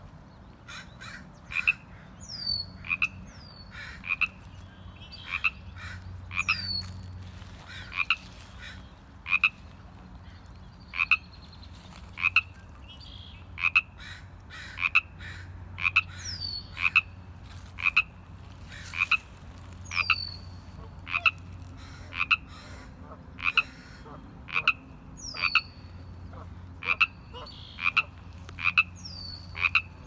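A Pacific chorus frog calling its ribbit over and over, about once a second. A bird repeats a high falling whistle every few seconds.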